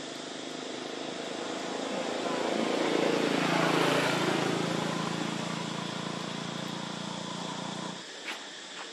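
A motor vehicle passing by: engine noise swells to a peak about halfway through, then fades, and cuts off abruptly near the end.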